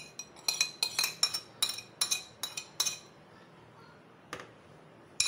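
Metal spoon clinking against a plate as ghee and ginger, garlic and green-chilli paste are knocked off it into a bowl of mince: about a dozen quick ringing taps over the first three seconds, then one soft tick.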